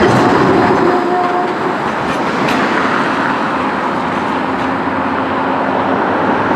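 Bombardier Flexity 2 tram running on its tracks: a loud, steady noise of wheels and drive, with a short faint whine about a second in.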